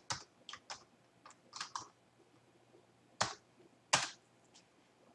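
Computer keyboard typing: a quick run of keystrokes in the first two seconds, then two louder separate clicks about three and four seconds in.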